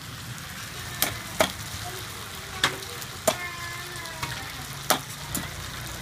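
Noodles and eggs sizzling steadily in a hot wok, broken by about six sharp knocks against the metal wok.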